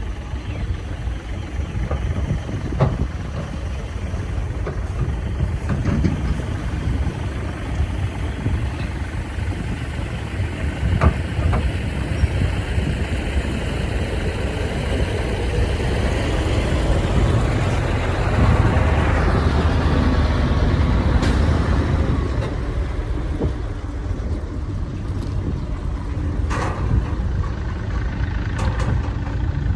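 Heavy diesel earthmoving machinery running steadily, with a few sharp knocks scattered through and a louder, hissier stretch about two-thirds of the way in.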